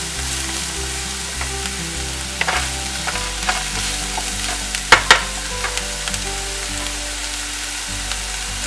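Chopped onions and garlic sizzling steadily in hot oil in a nonstick frying pan as they are sautéed towards golden brown. A wooden spatula stirring them scrapes and taps against the pan now and then, the sharpest knock about five seconds in.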